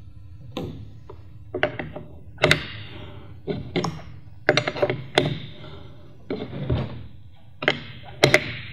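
A wrench clicking and knocking against the aluminium PCV adapter fitting as it is tightened into a plastic cold-air-intake elbow: about a dozen short, sharp metallic clicks, irregularly spaced.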